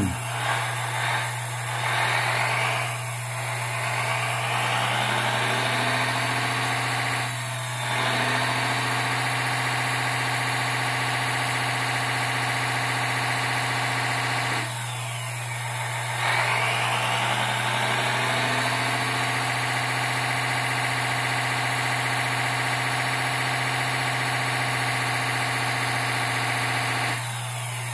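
Hydraulic pump of a 1/14-scale Earth Digger 360L RC excavator whining steadily while the boom, stick and bucket cylinders all move at once. The pump's pitch dips and climbs back up a few times, around a few seconds in, near 8 seconds and about halfway through.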